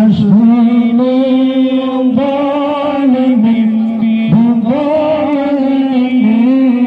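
A man's voice chanting into a microphone, amplified, in long drawn-out held notes, each lasting one to two seconds with short breaks between them.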